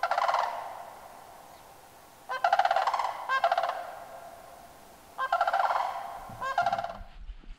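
Large birds calling: loud, rattling, honk-like calls in three bouts a couple of seconds apart, each call fading out over about a second.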